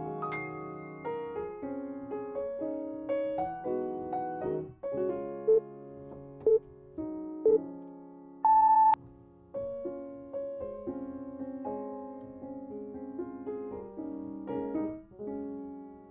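Calm piano background music. About five and a half seconds in, an interval timer sounds three short beeps a second apart, then one longer, higher beep, the countdown marking the switch between exercises.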